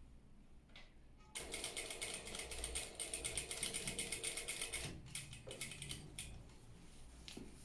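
Industrial sewing machine stitching: a fast, even mechanical clatter that starts about a second and a half in, runs for some three and a half seconds, then comes in a couple of short bursts as the fabric is fed through.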